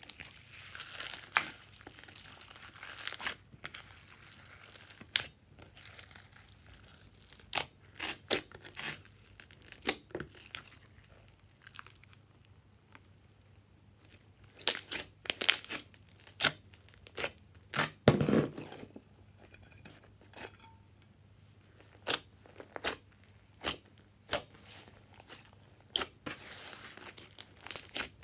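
Glossy slime loaded with glitter and sequins being mixed, stretched and kneaded by hand, giving sticky crackles, pops and clicks as it is pressed and pulled. The clicks come irregularly, with a crinkly run in the first few seconds and busier clusters around the middle and near the end.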